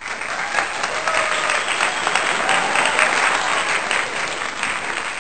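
Audience applauding, many hands clapping densely and steadily, starting to die away near the end.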